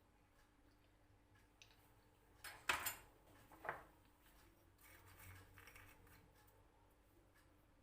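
Kitchenware being handled in a quiet room: a few sharp clinks about two and a half seconds in, a lighter one a second later, then soft scraping.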